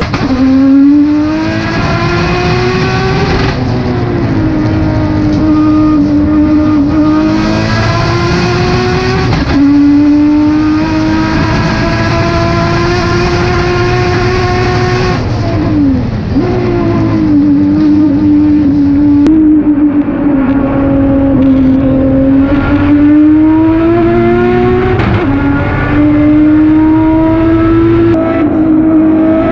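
Audi S4 quattro's turbocharged and supercharged 3.0-litre V6 TFSI race engine heard from inside the cockpit, running hard at high revs. Its pitch climbs through each gear and drops sharply at the shifts and lifts, several times over.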